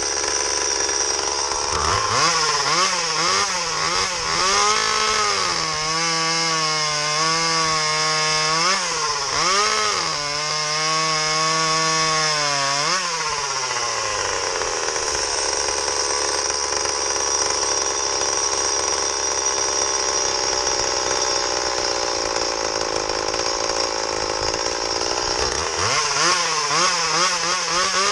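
Stihl MS170 30cc two-stroke chainsaw, with a home-made exhaust pipe and running without its air filter, revved from idle about two seconds in. Its pitch wavers up and down and holds high for several seconds, then drops back to idle around halfway. It revs up again near the end.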